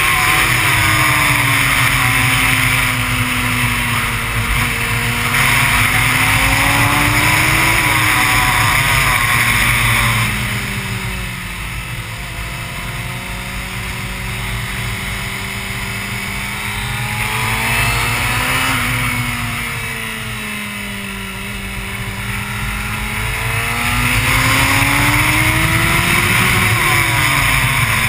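Honda CBR600 inline-four engine heard from an onboard camera through a circuit lap, its pitch falling as it slows and rising again as it accelerates several times, under heavy wind rush on the microphone. It runs quieter and lower through a long corner in the middle, then climbs again near the end.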